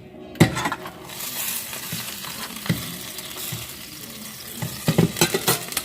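Pancake batter sizzling in a hot frying pan, with a scatter of sharp clicks and knocks from a utensil scraping the batter bowl, several of them close together near the end.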